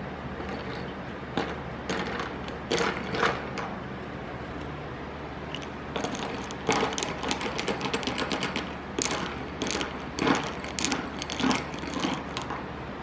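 Irregular clicks and rattles of small hard objects being handled, in clusters, over a steady low hum.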